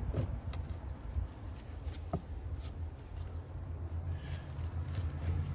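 A few faint clicks and scrapes as a pry bar levers at dry-rotted wooden door molding, over a low steady rumble.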